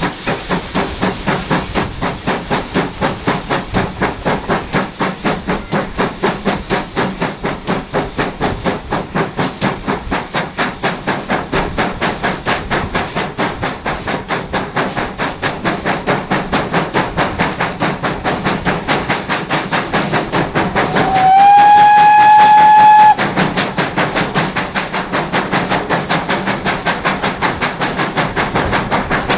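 GWR Manor class two-cylinder 4-6-0 steam locomotive 7822 Foxcote Manor working a train, heard from the carriages behind, its exhaust beating in a steady quick rhythm. About three-quarters of the way through, the engine gives one long whistle blast of about two seconds, the loudest sound here.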